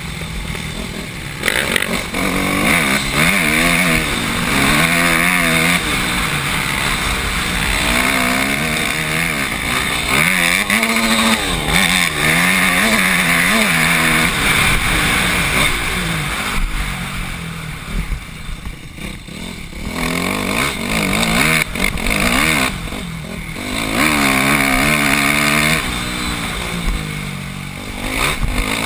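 Dirt bike engine heard from the rider's helmet camera, revving up and down as it rides on. The throttle eases off twice in the second half.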